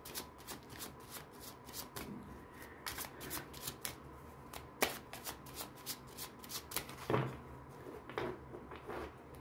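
A deck of tarot cards shuffled by hand, overhand from one hand to the other: soft, irregular flicks and taps of the cards, several a second.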